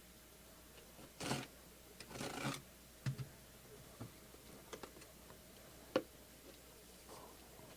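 Funko box packaging being handled: two short rustles, then a few light clicks and taps.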